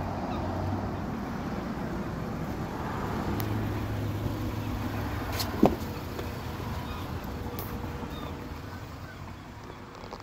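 Steady low vehicle engine hum with outdoor noise and wind on the microphone. One sharp click comes about five and a half seconds in.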